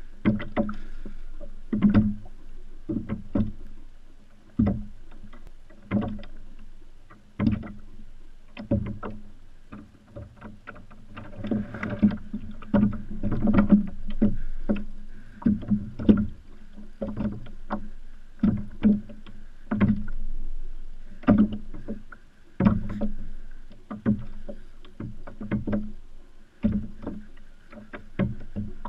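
Water slapping against a Hobie kayak's hull, an irregular run of sharp knocks roughly one a second over a low hiss of water.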